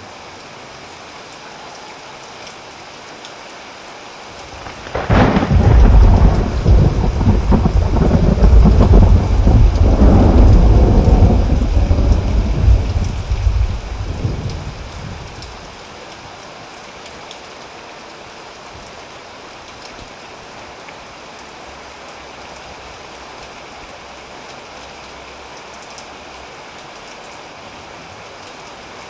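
Steady heavy rain, with a loud peal of thunder that breaks sharply about five seconds in, rumbles deep for several seconds with a second swell partway through, and dies away, leaving only the rain.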